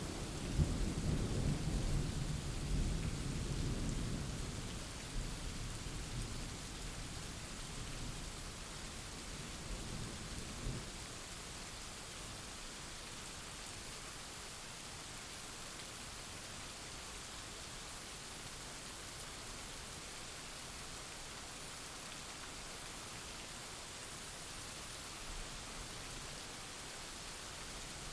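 Thunder rumbling over steady rain, the rumble dying away over about the first ten seconds and leaving an even hiss of rainfall.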